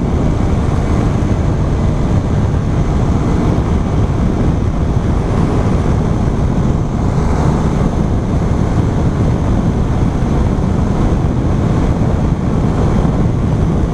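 Motorcycle riding at steady cruising speed: wind rushing over the camera's microphone mixed with the bike's running engine, an even, unbroken noise.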